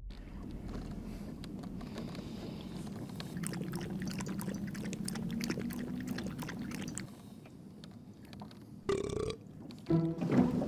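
A man swigging from a bottle, then burping loudly twice near the end, over background music.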